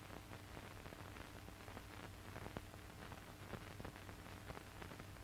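Faint hiss with a low steady hum and scattered small crackles: the background noise of an old film soundtrack.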